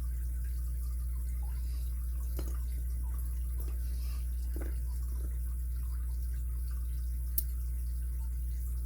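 Small, faint metallic clicks from a pick working the pins of an ABUS 83CS80 padlock, with one sharper click about seven seconds in, over a steady low electrical hum.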